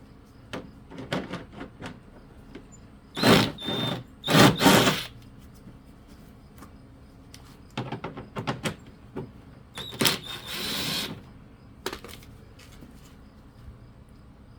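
Hand tools and small metal parts clicking and knocking during carburetor work, with three short, loud hissing bursts: one about three seconds in, one about four and a half seconds in, and one about ten seconds in.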